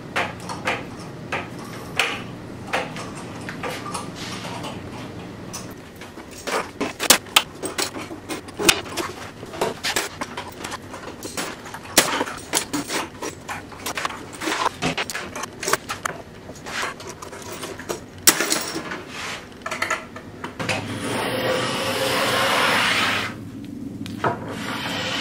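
Steel C-clamps being handled and screwed tight: a long run of sharp metal clicks, clacks and knocks. Near the end, two strokes of a small block plane shave along a plywood edge, each a steady rasp lasting a second or two.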